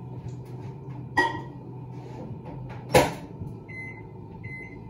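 Microwave oven door opened with a sharp clack, then shut with a louder bang about two seconds later, followed near the end by a few short keypad beeps over a low steady hum.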